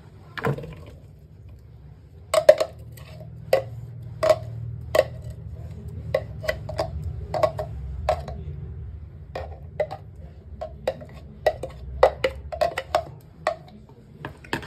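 Metal spoon knocking and scraping against a vegetable chopper's container and a plastic bowl as chopped salad is scooped out: irregular clicks and taps, starting about two seconds in, over a steady low hum.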